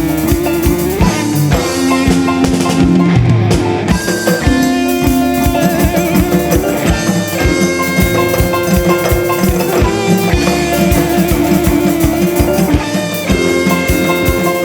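Ensemble music: fast, steady drumming under held melodic tones, some of which waver in a vibrato about halfway through.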